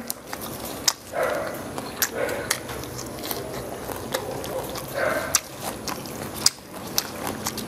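Close-miked chewing of a mouthful of bánh xèo wrapped in leafy greens, with irregular sharp wet mouth clicks between a few short bursts of munching.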